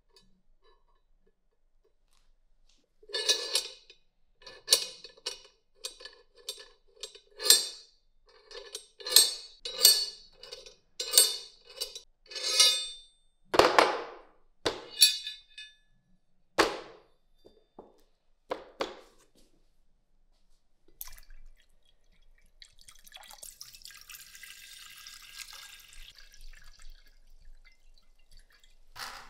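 A string of sharp, ringing metal clinks and knocks, about one a second, from the steel receiver of a Carcano rifle being handled and worked in a rifle cradle. Near the end comes a soft hiss of water being poured into a glass beaker.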